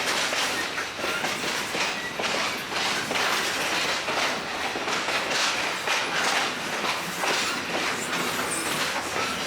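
Great Smoky Mountains Railroad passenger car running along the track, heard from aboard: a continuous rumble with the wheels clattering irregularly over the rail joints.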